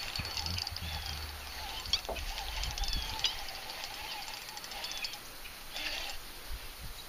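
Small birds chirping in short arched notes every second or so, over a low rumble of wind on the microphone.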